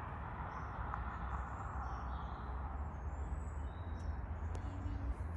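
Steady low rumble of a Volvo V60 T6 estate with its 3-litre engine driving along, tyre and engine noise, with faint bird chirps now and then.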